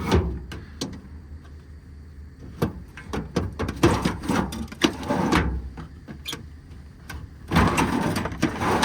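Small metal bolt drawers in a service-truck compartment being pulled out and pushed back in one after another: a run of clicks and knocks with a longer scraping slide near the end. The drawers slide a little stiffly, which the owner thinks might need a little lubrication.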